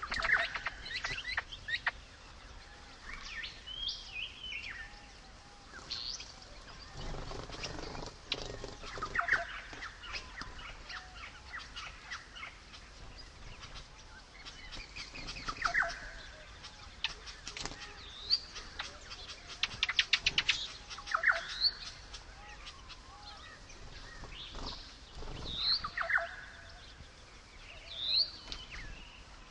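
Several wild birds calling: short rising whistled notes and chirps every few seconds, with a fast rattling trill about twenty seconds in.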